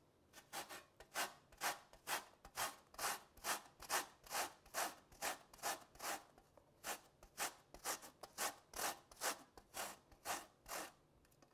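Lemon zested on a metal hand grater: a steady series of scraping strokes, about three a second, that stops shortly before the end.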